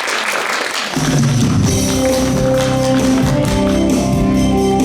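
Applause for the first second, then background music with held chords and a regular percussion beat starts about a second in and carries on.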